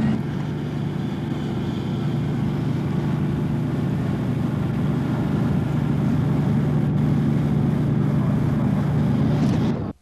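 Steady engine drone from fire engines running at the fire scene, a constant low hum under an even hiss, which cuts off suddenly near the end.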